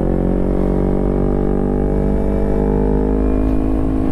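2012 Kawasaki Ninja 250R's parallel-twin engine through a LeoVince aftermarket exhaust, running steadily while being ridden, its pitch falling slowly as the revs ease off.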